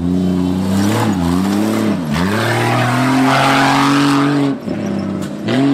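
Off-road 4x4's engine revving hard under load, its pitch dipping twice in the first two seconds, then held high for about two seconds before easing off, with a rushing noise over the top while it is held high.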